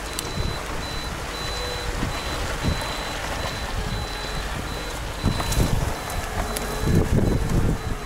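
Lada Niva 4x4 engine running at crawling speed while a high electronic warning beep repeats steadily, about twice a second. Louder low thuds and rumbles come about five seconds in and again near the end as the car lurches over the rough bank.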